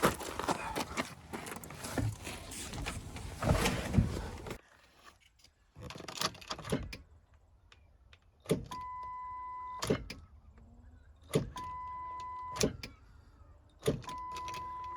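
Rustling and knocking of work under the truck, then three start attempts on a 2000 Ford Excursion 7.3L diesel that fail to crank. Each attempt is a sharp click, a steady high electronic beep lasting about a second, and another click. The lone click with no cranking is typical of a bad starter solenoid.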